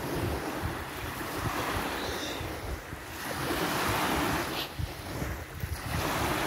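Waves washing onto a sandy beach, swelling and easing, with wind rumbling on the microphone.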